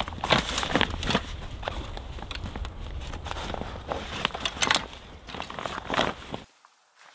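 Rustling, scraping and clicking of bike pannier bags and a fabric stuff sack being handled and pulled out, in short irregular bursts. A steady low rumble underneath stops suddenly near the end.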